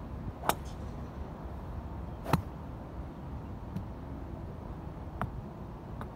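Golf club striking balls: two sharp cracks about two seconds apart, then three fainter clicks of further strikes, over a steady outdoor hiss.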